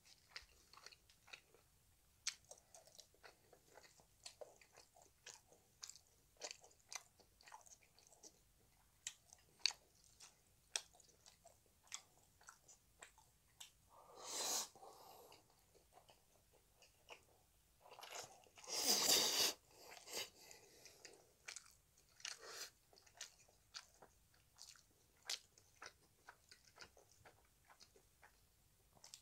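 Close-up mouth sounds of eating Chapagetti noodles: steady chewing with many small wet clicks. There are two loud noodle slurps, one about halfway through and a longer one some four seconds later.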